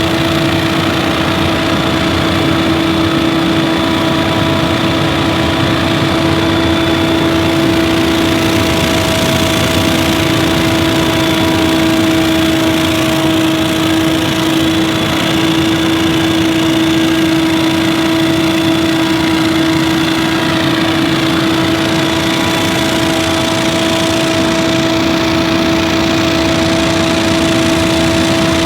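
Scag Windstorm stand-on leaf blower running steadily, its engine and fan holding one constant pitch with a strong steady whine over the rush of air.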